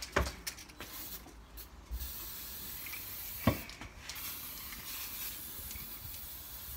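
Aerosol can of coloured hairspray spraying in long hisses, starting about two seconds in, with a short break a little after three and a half seconds. Two sharp knocks, the louder one just before the break.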